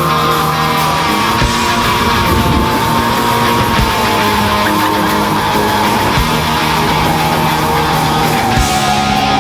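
Loud heavy rock music, with a steady whine that slowly sinks in pitch throughout.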